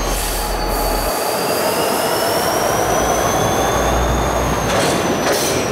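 Freight train rolling past, its steel wheels squealing on the rails. Several high, drawn-out squeals slowly slide up and down in pitch over a steady rolling rumble.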